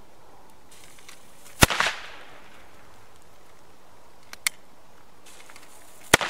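Two small old firecrackers from 1990 going off one after the other. Each burning fuse hisses for about a second, then the firecracker goes off in a sharp bang with a short crackling tail. The first bang comes about a second and a half in and the second near the end, with a single sharp click in between.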